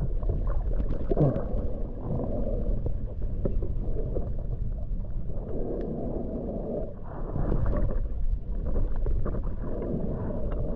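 Muffled underwater rumble of water moving around the camera, with gurgling swells every second or two.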